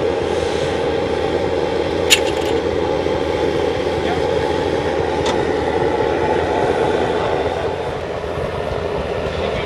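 Steady mechanical running noise, like machinery at work, with two sharp clicks about two and five seconds in.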